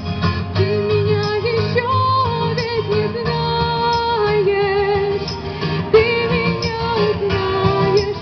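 A woman singing a slow melody of long held notes with vibrato over instrumental accompaniment.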